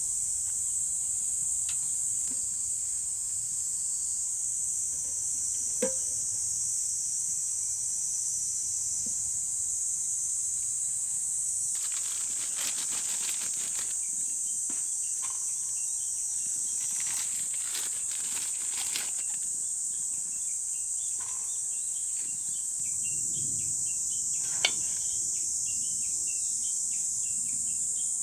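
Steady high-pitched drone of a summer insect chorus, with two brief louder rasping stretches about twelve and seventeen seconds in. A couple of sharp clicks stand out, the louder one near the end.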